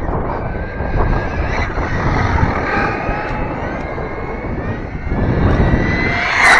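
Arrma Infraction RC car's electric motor and drivetrain whining at high speed, the pitch gliding up and down as the car is throttled. Near the end it comes close and the whine rises sharply to its loudest, over a low rumble of wind on the microphone and tyres on asphalt.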